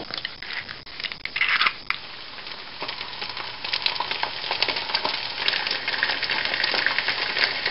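Steady crackling and sizzling, like flames burning, made of many small pops that grow busier partway through.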